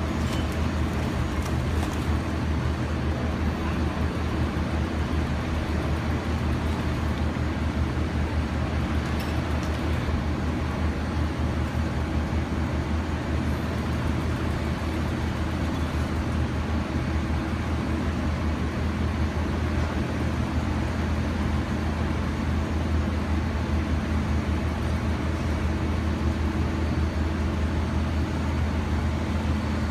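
Heavy concrete demolition machinery running steadily: a continuous low machine drone without breaks.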